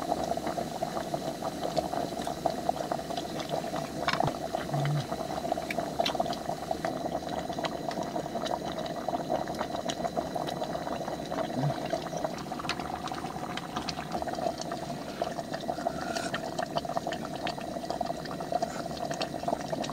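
Pot of doenjang stew simmering on a portable burner: a steady bubbling, with scattered small clicks and pops.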